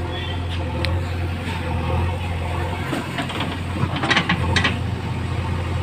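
JCB 3DX backhoe loader's diesel engine running steadily while it works the backhoe, with a cluster of short sharp knocks about four seconds in.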